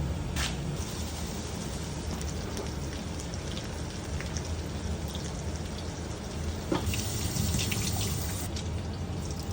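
Crumbled Italian sausage sizzling steadily in a frying pan as it browns, with a few faint clicks.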